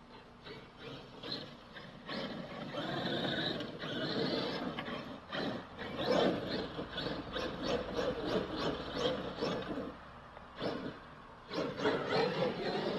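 Traxxas X-Maxx RC monster truck, running its stock motor on a Max6 speed controller, driving hard over loose dirt and pine straw. The tyres scrabble and throw dirt in surges of throttle, loudest about six seconds in and again near the end.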